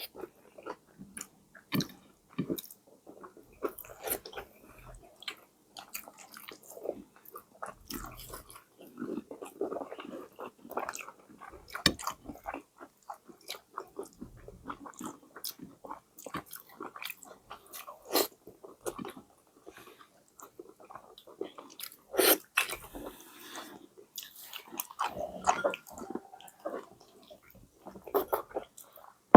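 Close-miked eating sounds: irregular biting and chewing with sharp crunchy clicks, as of crackers being bitten and chewed.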